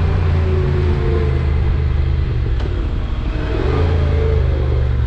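Honda NC750X's parallel-twin engine running while the motorcycle is ridden along, under a steady rush of wind and road noise. The engine note sags about three seconds in, then picks up again.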